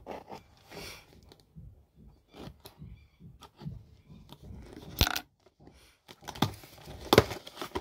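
Cardboard chocolate carton being slit and pulled open by hand: light scraping and tearing of the card, with a sharp click about five seconds in and two more near the end.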